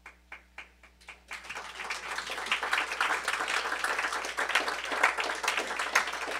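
Audience applauding: a few scattered claps at first, building about a second and a half in into steady applause.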